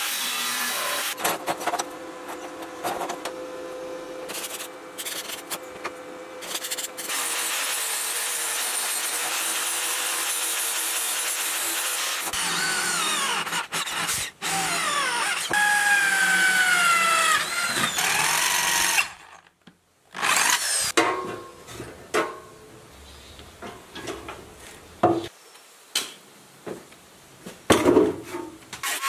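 An angle grinder cuts a thin steel strip, then a twist drill bores into steel clamped in a vise, the bit squealing in whines that slide down in pitch. After a brief break come scattered metal knocks and clanks.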